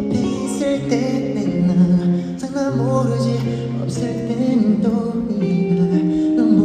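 Live pop music: a singer performing over band accompaniment, with long held bass notes and chords under a sung melody.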